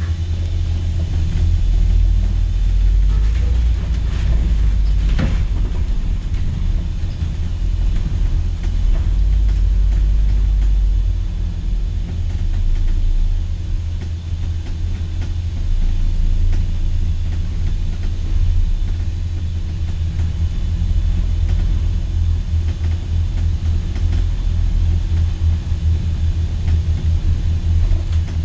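Double-decker bus heard from its upper deck while driving: a loud, steady low rumble of engine and road noise, with a brief knock about five seconds in.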